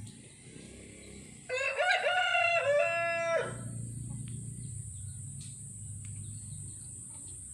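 A rooster crowing once: a single crow of about two seconds, starting about one and a half seconds in.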